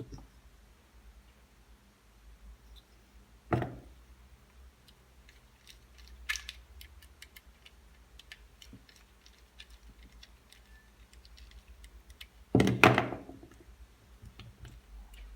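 Hands working wires into a lamp holder: scattered small clicks and taps, a sharp knock about three and a half seconds in and a louder knock with a short clatter near the end.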